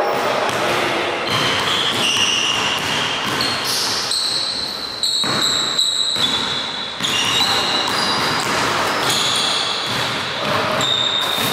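Basketball dribbled on a hardwood gym floor, bouncing repeatedly, with short high squeaks of sneakers on the court.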